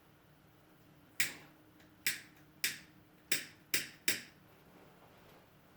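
A lighter being clicked six times in a row without catching: it is out of fuel.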